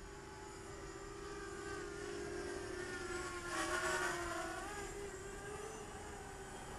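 Eachine EB185 racing quadcopter's motors and propellers whining in flight, the pitch wavering up and down with throttle changes. It grows louder and is loudest about three and a half to four seconds in, then eases off.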